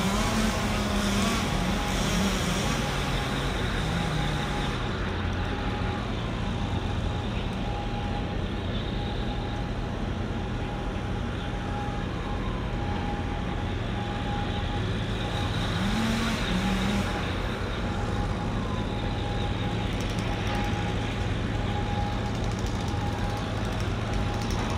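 Steady low engine rumble with general traffic-like noise, and an engine note that rises briefly near the start and again about 16 seconds in.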